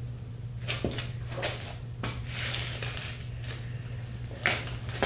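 Someone rummaging off camera for a multimeter: scattered light knocks, clicks and rustles of things being shifted, over a steady low hum.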